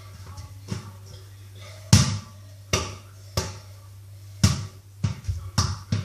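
A ball bouncing on a hard floor: a series of sharp knocks at uneven intervals, the loudest about two seconds in, over a steady low hum.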